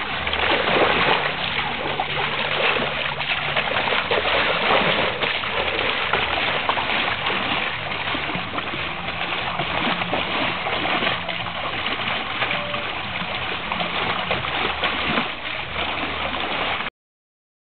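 Water splashing and sloshing as a dog wades and paws in the shallow water on a pool's steps, an irregular, continuous splashing.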